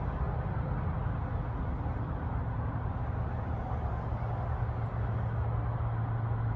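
Wind rumbling on the microphone, with a steady low hum that grows stronger about halfway through.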